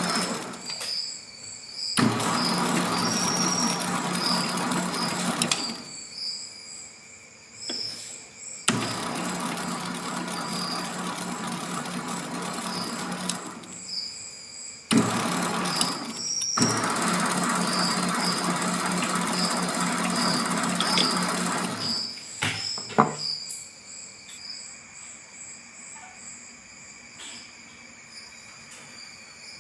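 MX 600A mini lathe running in four short runs while thread-cutting brass hexagon bar: a low motor hum under a rough, noisy cutting sound. Each run starts with a sharp click, and the machine stops for good about 22 seconds in, after a few more clicks.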